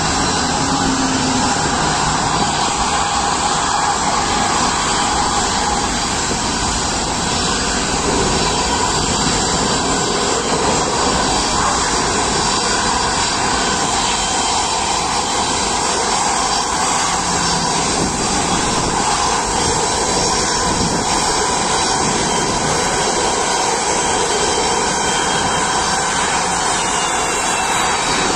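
Antonov An-124's four Progress D-18T turbofan engines running at taxi power as the aircraft rolls along the taxiway: a steady, loud jet noise with high whining tones, the whine shifting in pitch near the end as the aircraft draws closer.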